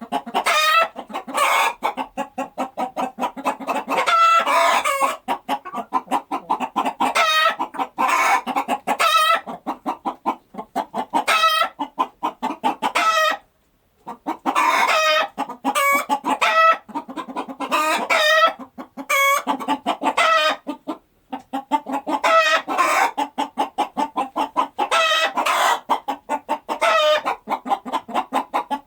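Chickens clucking in quick, steady runs of calls, with short breaks about halfway through and again about two-thirds through.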